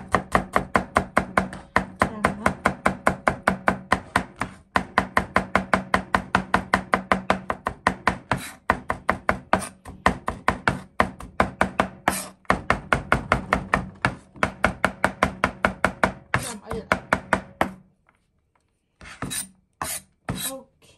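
Cleaver mincing garlic on a polypropylene cutting board: rapid, even knife strokes about five a second, with a couple of brief pauses, stopping about eighteen seconds in. A few separate knocks follow near the end.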